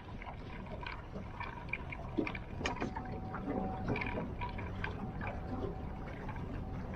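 Water lapping and trickling against a small fishing boat's hull, with many light scattered clicks. A thin steady whine runs for a few seconds in the middle.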